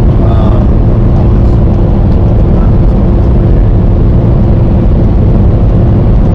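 Steady engine and road drone inside a semi-truck's cab while driving, with a constant hum running through it.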